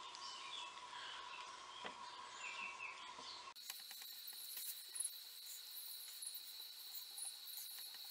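Low-level background with faint high chirps and a steady high tone, changing abruptly about three and a half seconds in, with a couple of faint clicks about two seconds in and again near five seconds.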